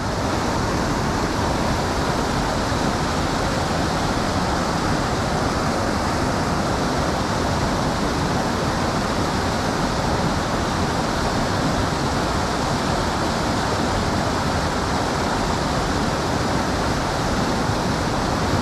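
Creek water rushing: a steady, even noise that doesn't change.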